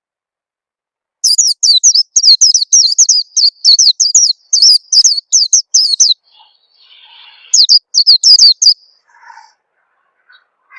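White-eye (pleci) calling in rapid runs of short, high, downward-slurred chirps, about three to four a second. A run of about five seconds begins a second or so in, and a second, shorter run follows after a brief pause.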